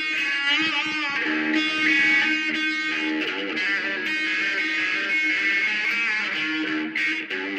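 Electric guitar playing a blues lead, with bent notes and vibrato over a repeated low note.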